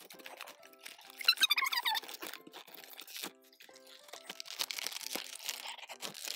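Toy packaging being torn and crinkled open in short, irregular bursts, over background music with held notes.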